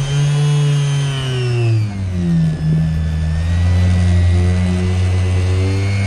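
Bosch random orbital sander with a polishing pad running on a fibreglass deck, a steady motor whine whose pitch drops about two seconds in and then holds.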